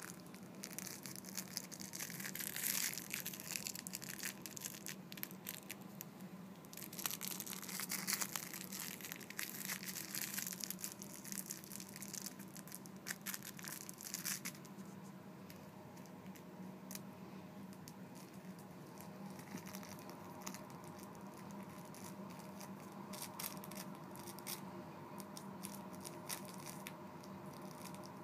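Orange tabby kitten scuffling with a plush toy on carpet: irregular rustling and scratching with many small clicks, in bursts that are busiest in the first half, over a faint steady hum.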